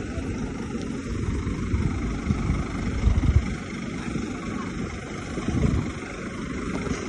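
Diesel engine of heavy earthmoving machinery running, a low rumble that swells and eases unevenly, loudest about three seconds in.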